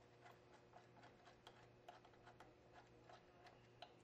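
Faint, irregular light metallic clicks, a few a second, as the nuts and bolts on the lower flange of a Bell & Gossett NRF-22 circulator pump are worked loose by hand, over a low steady hum.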